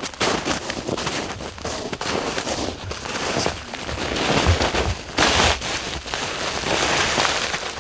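Footsteps crunching through snow at a walk, an irregular run of crisp crunches.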